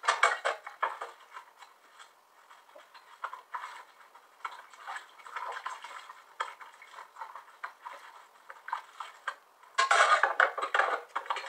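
Aluminium foil wrapper crinkling and crackling as it is peeled back from a bar of food. There are loud bursts at the start and again about ten seconds in, with softer clicky eating sounds between.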